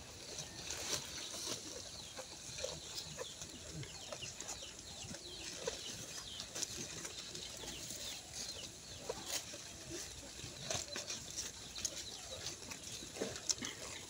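Quiet farmyard background: faint bird chirps and scattered small clicks and rustles, with no one speaking.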